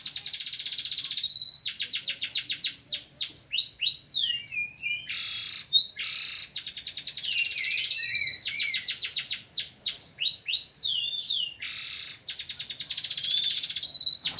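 Domestic canary singing continuous song: fast trills of rapidly repeated notes alternate with buzzy rolls and sliding whistled notes, phrase after phrase.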